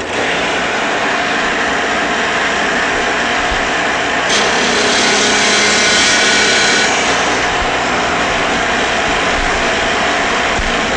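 Biscuit joiner mounted horizontally on a Shopsmith Mark V, switched on and running steadily. From about four to seven seconds in, its blade cuts a biscuit slot into the face of a wooden board, adding a higher hiss of cutting.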